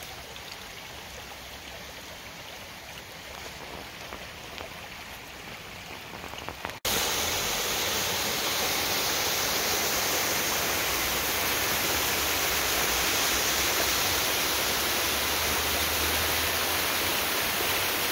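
Shallow creek water running steadily over a stony bed. About seven seconds in it gives way abruptly to the much louder, steady rush of a waterfall pouring into a pool.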